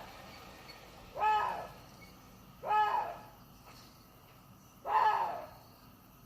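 Water deer calling three times, each a short hoarse cry of about half a second that rises and falls in pitch, spaced a second and a half to two seconds apart.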